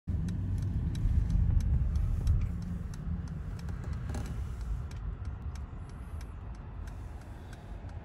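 Car cabin noise from a car driving slowly: a steady low rumble of engine and tyres, louder in the first two and a half seconds, with faint light clicks scattered through it.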